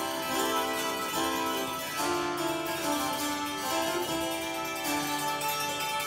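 A dulcimer and a spinet playing early music together, a continuous run of struck and plucked string notes ringing over one another.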